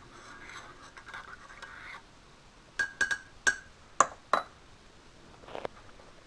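Spoon stirring coffee in a ceramic mug, scraping and clinking against the inside for about two seconds, then about six sharp ringing taps against the mug in quick succession. A short rustle near the end.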